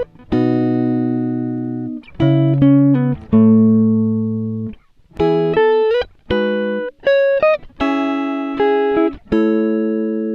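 Background music on guitar: plucked notes and chords that each die away, with a few notes sliding in pitch.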